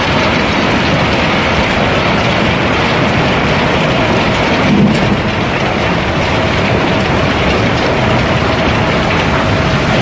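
River cobblestones pouring steadily down the funnelled hold of a barge being unloaded, a dense continuous rattle of rock on rock. A single dull knock a little before the middle.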